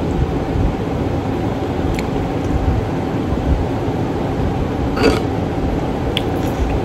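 Steady mechanical hum with a low, uneven rumble. A few faint clicks come through, and a brief rustle about five seconds in.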